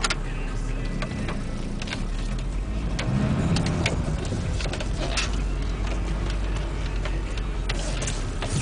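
VW T4 2.5 TDI five-cylinder diesel running steadily, heard from inside the cab, with a low drone that swells slightly about three seconds in. Light irregular ticks sound about once a second over it.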